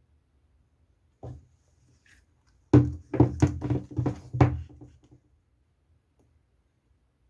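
A single knock, then a quick run of about eight sharp knocks and thumps over roughly two seconds.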